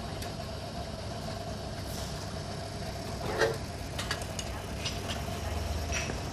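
Steady low background hum with a faint steady tone, scattered light clicks, and a brief louder clatter about three and a half seconds in.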